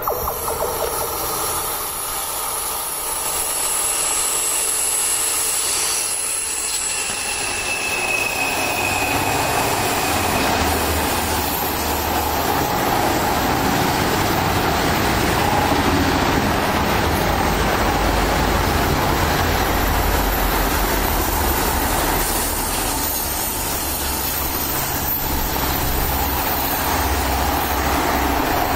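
Electric freight train passing close by on the curve: a steady rumble and rolling of many wagon wheels on the rails, building over the first several seconds as the train arrives and then holding level. The wagons carry lorries and vans, and a red ÖBB electric locomotive comes past near the end.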